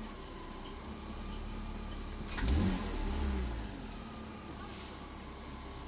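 BMW E46 320i's M54 straight-six engine idling, then blipped once about two seconds in: a sharp clunk from the engine bay as the throttle opens, and the revs rise and fall back to idle. The owner suspects the idle control valve.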